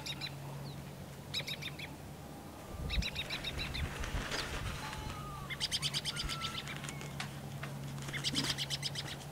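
Small birds chirping in several short bursts of fast repeated notes, over a steady low hum. About three to four seconds in, a large cloth flaps as it is shaken out.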